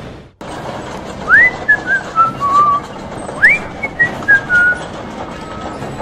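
Whistling: two short phrases, each a quick upward swoop followed by a few short notes stepping down in pitch.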